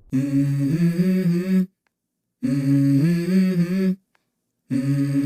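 Outro music: a hummed vocal phrase with a pitch that steps upward, sung three times with clean silent gaps between.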